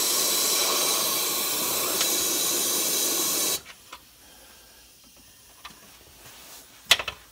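Air-powered rust-proofing sprayer with a multi-hole nozzle wand spraying: a steady hiss for about three and a half seconds that cuts off abruptly. A few sharp clicks follow near the end.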